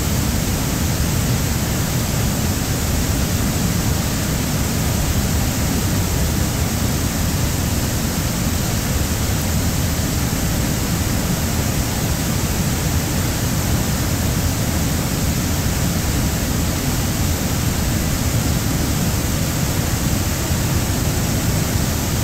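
Floodwater pouring over a concrete dam's spillway and crashing into the plunge pool below: a steady, loud, unbroken rush with a deep low rumble.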